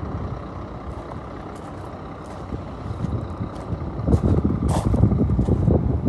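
An all-terrain vehicle's engine running as a steady rumble, growing louder and more uneven about four seconds in.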